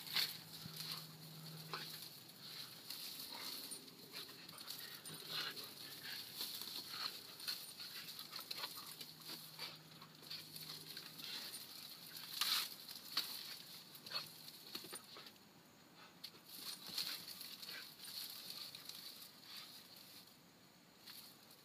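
Four-month-old Weimaraner puppy moving about on grass, making small dog noises, with scattered short clicks and rustles. Over a steady high-pitched background hum.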